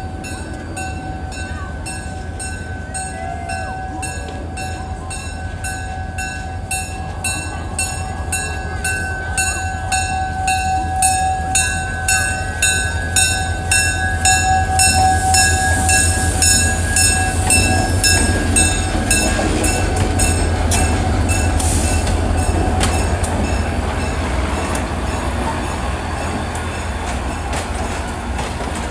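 Southern Railway No. 2601 diesel locomotive running past with a passenger train, its engine a steady low rumble that builds to its loudest about halfway through and then eases off as the cars follow. A faint steady high squeal and a regular clicking run under it.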